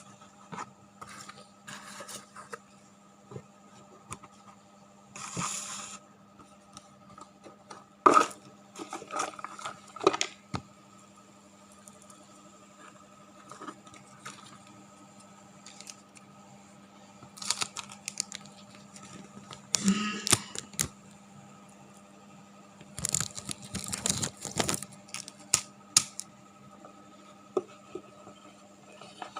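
Scattered handling noises: short clusters of rustling, scraping and clicks, with sharp clicks about eight seconds in and a busier stretch near the end, over a faint steady hum.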